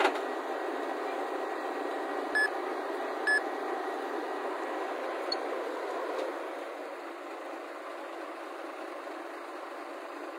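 Diesel engine of a flatbed truck loaded with a tracked excavator running steadily, easing a little about six seconds in. Two short high beeps about a second apart sound a couple of seconds in.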